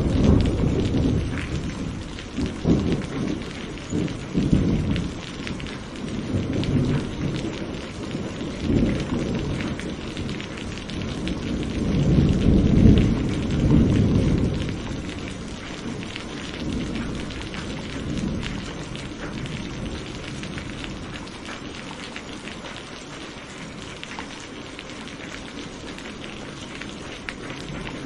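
Steady rain falling, with thunder rumbling low underneath in waves that build to a long peak about twelve to fourteen seconds in, then fade out, leaving only the rain for the rest.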